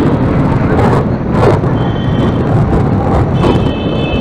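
Busy town-street traffic heard from a moving vehicle: a steady loud rumble of engines and wind on the microphone, with vehicle horns sounding briefly about halfway through and again near the end.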